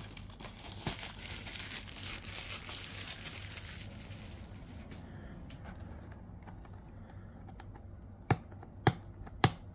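Plastic shrink-wrap crinkling as it is pulled off a cardboard trading-card box, dying away after about four seconds. Near the end come three sharp clicks, about half a second apart, as fingers pick at the box's cardboard seal to break it.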